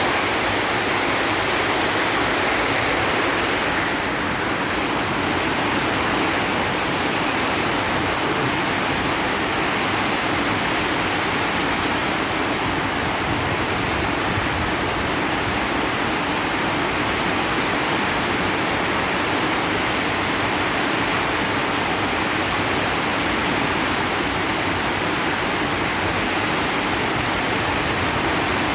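Heavy rain falling steadily on a zinc sheet roof, an even, unbroken hiss of many drops with no single drops standing out.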